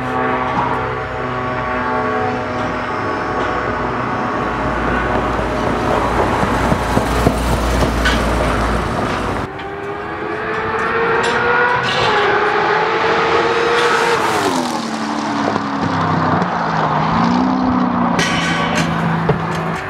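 Hennessey-tuned Corvette ZR1's supercharged V8 running at a steady note with a deep rumble. After an abrupt change about halfway, it revs on the track, its pitch climbing, dropping steeply, then rising and falling again.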